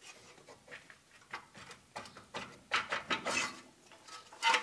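Brake caliper and other metal front-end parts being handled by hand: irregular metallic clinks, taps and scrapes, with the loudest clink just before the end.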